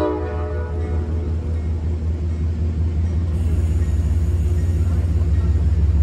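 Steady low hum and rumble of an idling Amtrak passenger train standing at the platform.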